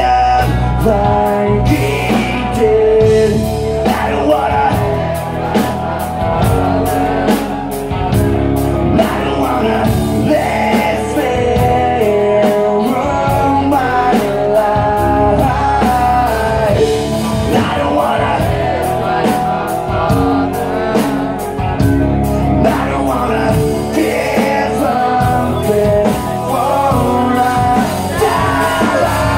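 Live rock band playing: electric guitars, bass and a drum kit under a sung lead vocal, loud and steady, heard through the club PA from within the audience.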